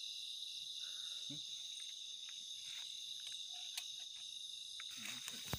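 Steady high-pitched chorus of night insects, with a few faint clicks and one sharp knock near the end.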